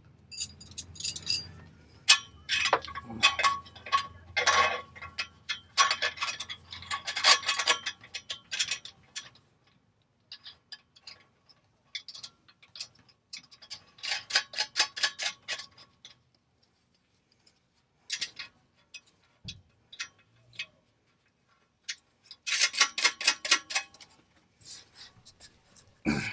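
Hand socket ratchet clicking in quick runs, in several bursts with pauses between, mixed with light metal clinks of tools.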